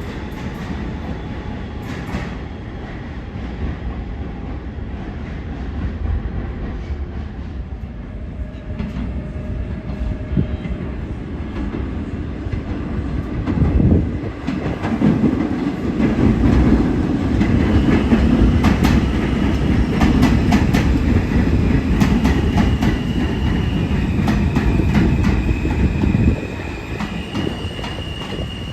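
An R160 subway train running through the station, its wheels clacking over rail joints. It grows louder about halfway through and drops off sharply a couple of seconds before the end, with a few steady high tones sounding in its last seconds.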